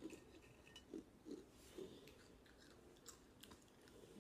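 Faint chewing of crunchy hot Cheetos, a few soft chews in the first two seconds, then quieter mouth sounds.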